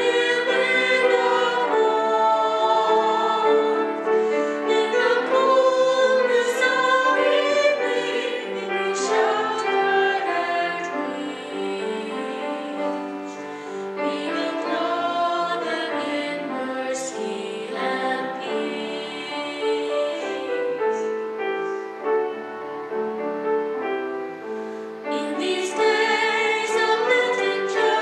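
A hymn sung by voices with piano accompaniment, the notes held and flowing continuously.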